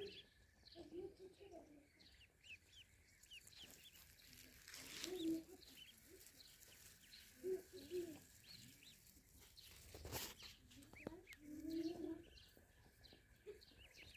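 A group of ducklings peeping: many short, high cheeps, faint and overlapping, with a few lower calls mixed in now and then.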